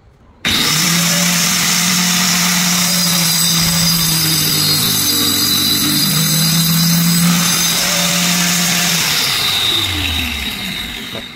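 Angle grinder switched on about half a second in and running at full speed with a high steady whine, its cutting disc cutting a groove into a wooden board. Near the end it is switched off and winds down.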